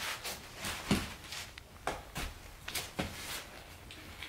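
Irregular light clicks and knocks of a camp cot's metal leg parts being handled and worked free at the frame, with fabric rustling between them.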